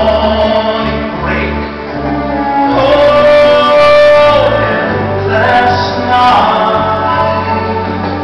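A song with singing over instrumental backing and a stepping bass line, with one long held note in the middle.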